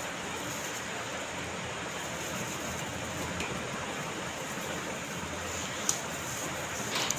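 Steady airflow hiss of a laminar flow cabinet's blower, with a sharp click about six seconds in as gloved hands handle a small vial.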